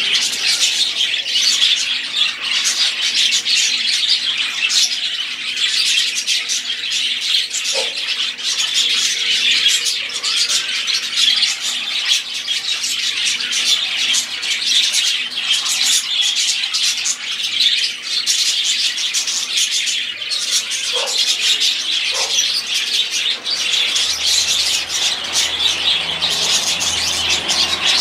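Budgerigars chattering and warbling without pause, a dense mix of overlapping high chirps and squawks.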